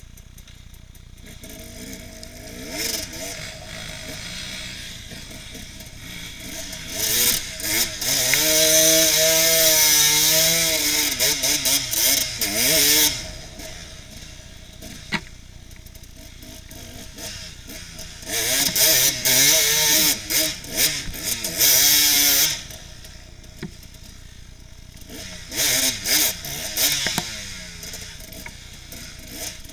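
Enduro motorcycle engine heard from on the bike, revving hard in bursts as the throttle is opened and closed, its pitch rising and falling. There is a long loud stretch about a quarter of the way in, another past the middle and a shorter one near the end, with quieter running in between.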